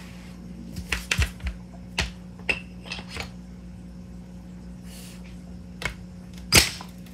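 Light clacks and knocks of a carbon-fibre air bottle's metal adapter being handled and lined up against an air rifle's receiver. A quick cluster comes in the first seconds, a few more are spaced out after it, and one louder knock falls near the end, all over a steady low hum.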